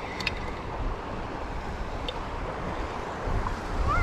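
Wind buffeting the microphone over a steady rush of flowing creek water, with a few short clicks near the start and a faint bird chirp near the end.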